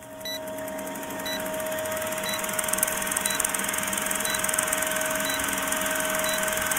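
Film-leader countdown sound effect: a film projector running with a steady hum and a fast, even clatter, fading in over the first second, with a short high blip once a second as each number ticks down.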